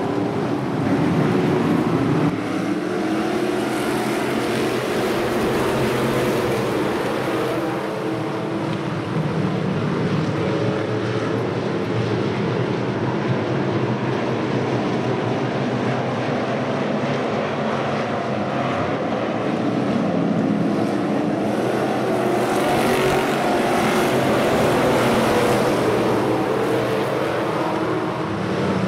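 A pack of street stock race cars' V8 engines running hard together on a dirt oval. Several engine notes overlap and waver up and down in pitch as the cars go past, a little louder near the end.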